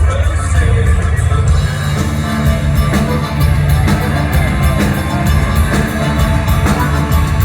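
Live band playing a gothic-country rock song, loud and continuous, with a heavy bass.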